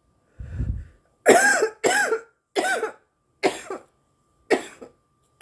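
A woman coughing from marijuana smoke: about five harsh, voiced coughs roughly a second apart, the first two loudest and the rest weaker. A low muffled rumble comes just before them.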